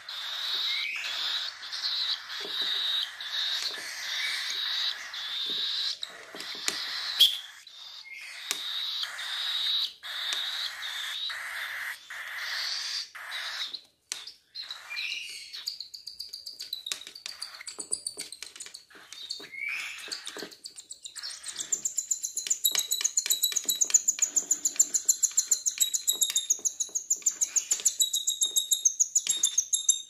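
Cockatiel chicks giving harsh begging calls while being hand-fed formula from a syringe. About two-thirds of the way in the calls become a fast, even rapid-fire chatter as a chick feeds.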